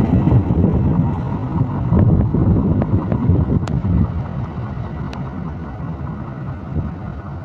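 A train behind a CC206 diesel locomotive passing, its low rumble loud at first and fading steadily as it moves away, with a few sharp clicks along the way.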